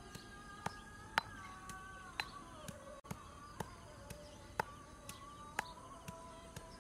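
Stone pestle pounding green herb paste in a stone mortar: a steady run of sharp knocks, about two a second.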